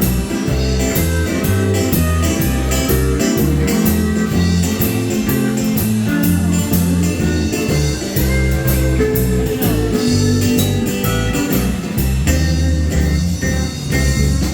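Country band playing an instrumental break: a lead guitar carries the melody over bass and drums keeping a steady beat.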